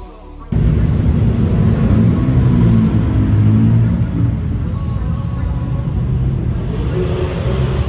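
A car engine running loudly with a deep, pulsing exhaust rumble, cutting in abruptly about half a second in.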